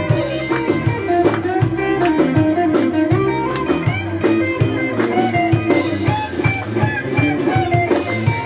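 Band music: guitar melody over drums with a steady beat.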